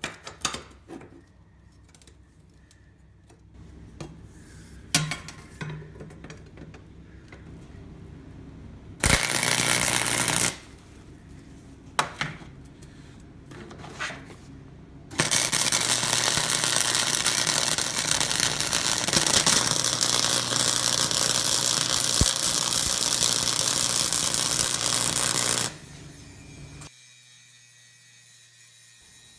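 Electric arc welding on 1-inch steel angle iron: a short weld of about a second and a half, then a steady crackling bead lasting about ten seconds, with light clinks of the steel being handled before and between.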